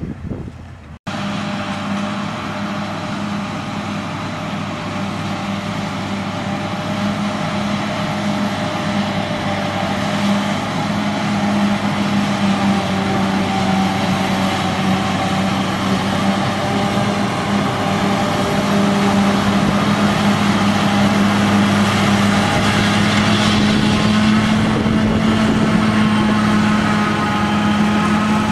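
Heavy farm machinery engine running steadily, with a constant hum that starts abruptly about a second in and grows louder over the following seconds.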